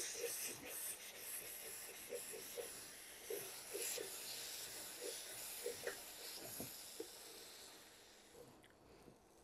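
Thick olive pickle cooking down in a non-stick wok as it is stirred with a wooden spatula: a faint sizzling hiss with soft, irregular plops and scrapes, fading out about eight seconds in.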